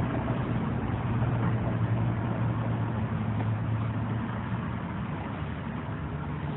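Noble M12's Ford Duratec V6 being cranked over on its starter motor for a compression test, a steady low hum that eases after about four seconds as the gauge on cylinder two builds to its reading.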